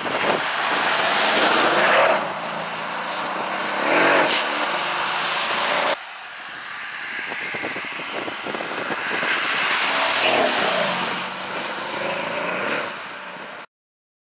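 Mercedes SL63 AMG's twin-turbo V8 accelerating hard past on a wet road, engine pitch climbing and falling over a strong hiss of tyres on standing water. About six seconds in it cuts to a second pass that builds as the car closes in and goes by. The sound stops abruptly near the end.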